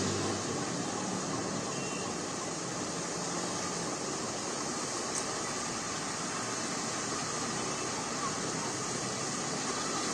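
Traffic on a rain-flooded street: a steady wash of rain and water noise with vehicle engines running.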